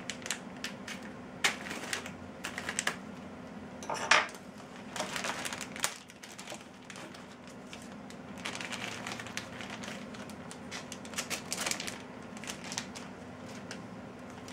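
Plastic and paper packaging being handled and unwrapped by hand, crinkling in short patches with many small clicks and taps.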